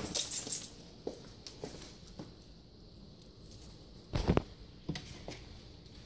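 Small metal pieces jingling and clinking, loudest in the first half-second, then a few light clicks and one dull thump about four seconds in.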